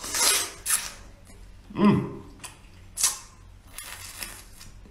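Close-up mouth sounds of eating braised small squid: wet slurping and smacking in short bursts, the first as he bites in. A brief hum from the eater about two seconds in.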